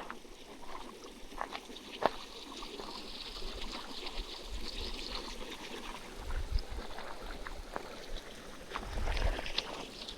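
A small stream running and trickling, with footsteps on a rough path clicking over it. There are two short low rumbles, about six and nine seconds in.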